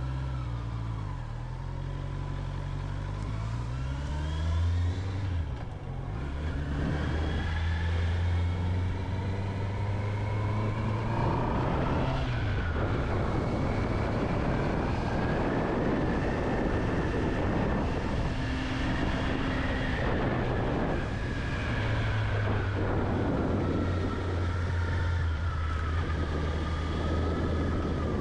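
Honda CB650R's inline-four engine on the move, its pitch climbing in steps through the gears in the first few seconds, then running steadily under a rush of wind noise.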